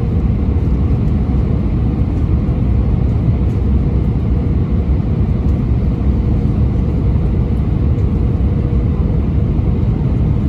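Cabin noise inside an Airbus A319 descending on approach: a steady deep rumble of engines and airflow with a faint steady hum above it.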